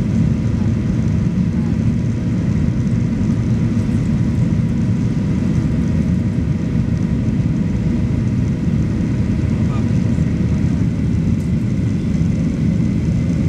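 Steady cabin noise of a Boeing 737-800 climbing after takeoff, heard from a window seat over the wing: a deep engine and airflow rush with faint steady engine tones above it.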